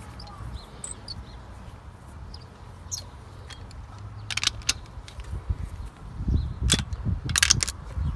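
Hand ratchet on an extension clicking as the exhaust manifold nuts are worked loose: scattered single clicks at first, then short bursts of rapid clicks in the second half, with a few dull low knocks.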